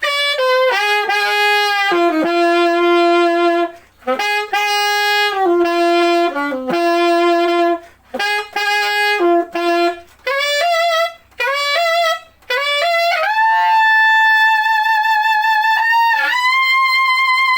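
Yamaha YAS-855 Z Custom alto saxophone played solo: short melodic phrases broken by quick breaths, then long held notes with a wide vibrato near the end.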